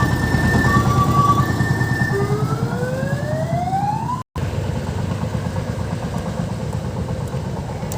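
Hand-crank-start diesel engine of an odong-odong mini tourist train running with a fast, even chug, under a loud siren: first a two-tone hi-lo alternation, then a single rising wail that cuts off abruptly about four seconds in, leaving the engine alone.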